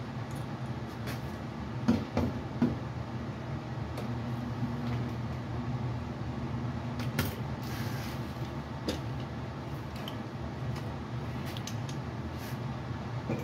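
Steady low hum with a few sharp clicks and knocks from stud-welder dent pulling: pins being welded onto the sheet-metal box side and pulled out. The loudest knocks come twice, about two seconds in.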